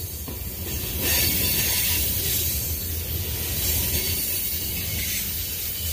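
Covered hopper and tank cars of a long manifest freight train rolling past close by: steel wheels on rail giving a steady low rumble with a hissing high edge, getting louder about a second in.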